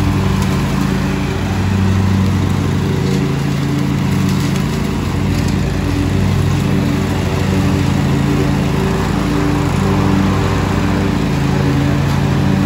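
Lawn mower engine running steadily, its pitch shifting slightly now and then.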